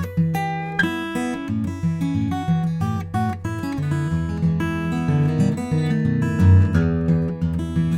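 Gibson 1942 Banner reissue J-45 acoustic guitar, a red spruce top over mahogany back and sides, played solo: a run of picked and strummed notes, with a bass line under ringing treble notes.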